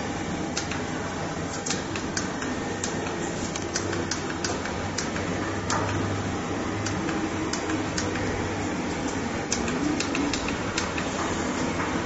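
Irregular light clicks and taps from hands working a hot bar bonding machine's camera and fittings, over a steady low machine hum.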